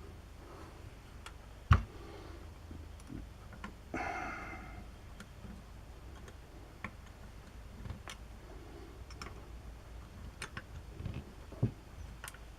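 Scattered clicks and knocks of metal drill parts being handled and fitted together during the reassembly of a breast drill, with a sharp knock about two seconds in, a brief scrape around four seconds, and another knock near the end.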